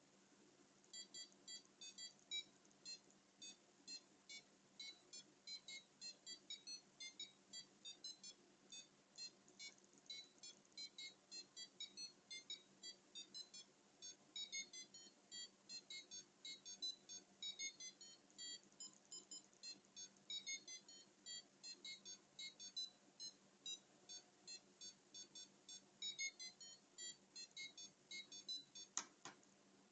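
Arduino alarm clock's buzzer sounding its alarm as a tune of short beeps at changing pitches, about three a second. The tune stops shortly before the end with a click.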